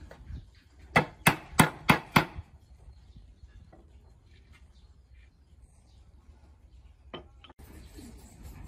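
Five quick, sharp knocks of wood on wood, about three a second, as rustic wooden chair parts are knocked together at a joint. A couple of faint clicks follow near the end.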